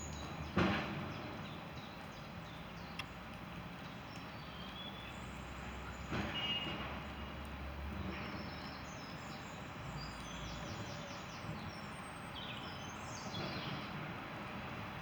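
Garden birds singing and chirping in short, high phrases over a steady low background hum, with two brief louder rushes of noise, about half a second in and again about six seconds in.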